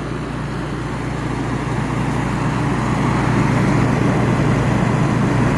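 1988 Emerson Quiet Kool 7600 BTU window air conditioner running: a steady low compressor hum under the rush of its fan, growing gradually louder. The unit is working under a heavy load in hot air.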